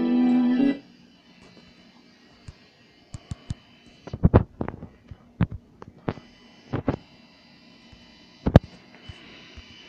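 Music with guitar cuts off abruptly about a second in. It is followed by a faint steady hum and a scatter of sharp clicks and knocks from fingers handling the phone over its microphone, the loudest about four and eight and a half seconds in.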